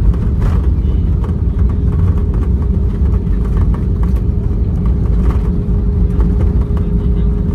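Cabin noise of an Airbus A320-200 rolling out on the runway just after touchdown: a loud, steady rumble of wheels and engines, with a steady hum above it from about half a second in and a few light knocks.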